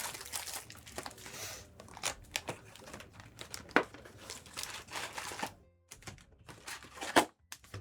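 Crinkling and tearing of plastic wrapping on trading card packaging, as a sealed One Piece card box or its foil booster packs are opened. Irregular crackles, with a few sharp snaps, the loudest about four seconds in and again near the end.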